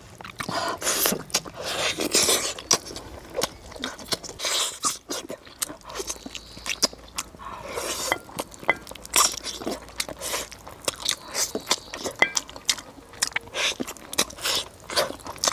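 Close-miked eating: biting, gnawing and chewing tender braised donkey-hoof meat off the bone, with lip-smacking and many irregular short clicks.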